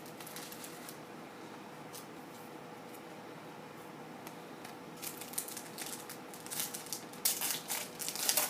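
Foil wrapper of a trading card pack crinkling and crackling as it is handled and torn open, starting about five seconds in and loudest near the end.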